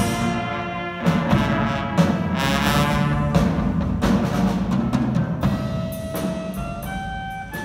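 Small jazz band playing live: trumpets, saxophones and trombone over drum kit and keyboard, with regular drum hits under the horns. About six seconds in, the full band drops back to a few held notes.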